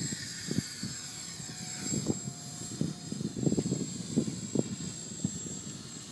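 Electric motors and propellers of a Dynam PBY Catalina RC model plane whining in flight, slowly falling in pitch as it passes, half buried under gusts of wind buffeting the microphone.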